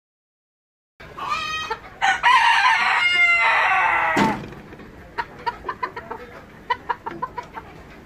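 Silver Mille Fleur rooster crowing once, a loud call of about two seconds that follows a shorter call about a second in. Soft, quick clucking follows.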